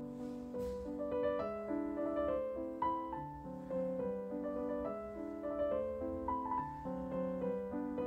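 Background piano music, with held notes and chords that change every second or so.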